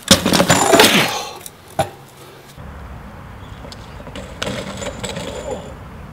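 BMX flatland bike on concrete: tyres scrubbing and the metal pegs and frame clattering, with sharp knocks in the first second and another just under two seconds in. About four and a half seconds in comes a second burst of clatter as the rider goes down and the bike hits the ground.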